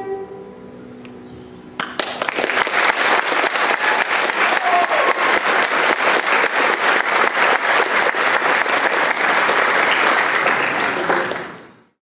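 Audience applauding with many hands clapping. It breaks out about two seconds in, just after a sung note ends, holds steady, and fades out near the end.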